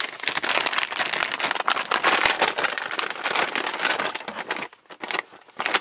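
Close rustling and crackling handling noise with many small clicks, thinning out about four and a half seconds in.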